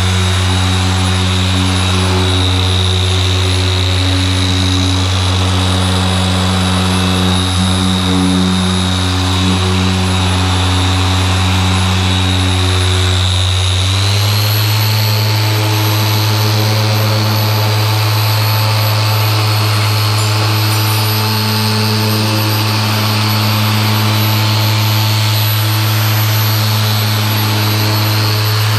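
Griot's Garage G9 random orbital polisher running with a foam pad on a car's paint: a steady motor hum and whine. About halfway through it steps up in pitch as the polisher is switched to a higher speed setting.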